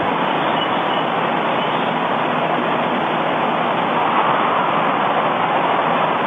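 Erupting volcano: a steady, even rushing noise with no separate bursts or bangs, from a recording of a different volcano's eruption.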